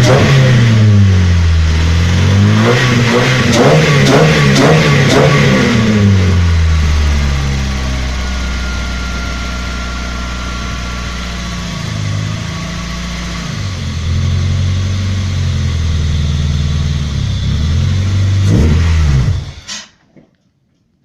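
Naturally aspirated VW Golf Mk3 engine revved in repeated throttle blips, the pitch climbing and dropping several times. It then holds at a lower, steadier speed before a few more rises and falls, and the sound cuts off abruptly near the end.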